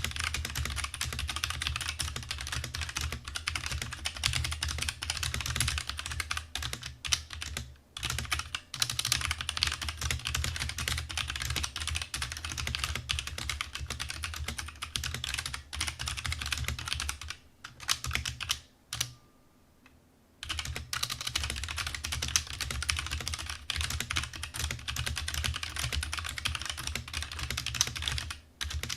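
Fast typing on a DREVO Gramr 84 mechanical keyboard with Outemu brown tactile switches: a dense, steady clatter of keystrokes without a click, broken by a few short pauses and one of about a second and a half some twenty seconds in.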